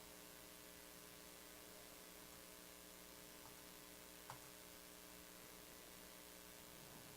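Near silence: a faint steady electrical hum with light hiss, and one small click about four seconds in.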